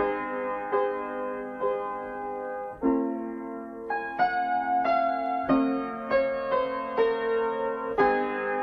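Background piano music: single notes and chords struck at an easy pace, about one or two a second.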